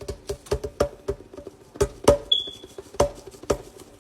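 An irregular series of light, hollow-ringing taps and knocks on a hard container, about a dozen in a few seconds, as chicken bouillon powder is added to the salsa ingredients.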